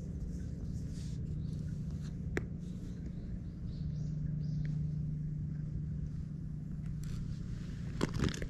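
Cat purring steadily close to the microphone while being stroked, a low even rumble. A sharp click about two seconds in and brief scraping noises near the end.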